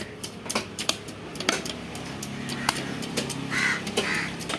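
A fish-cutting knife knocks and chops on a cutting board in quick, irregular strikes. Near the end a crow caws twice.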